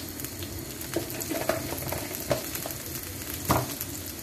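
Water and oil with raw mango pieces and whole spices simmering in a wok on a gas burner, left to soften: a steady hiss with a few small pops or ticks, the loudest about three and a half seconds in.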